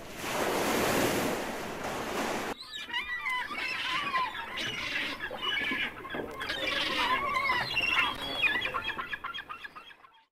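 A rush of surf-like noise for about two and a half seconds, then many birds calling over one another in short, warbling calls, fading out near the end.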